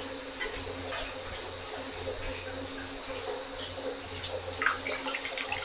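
Water running steadily, with a few sharp clicks about four to five seconds in.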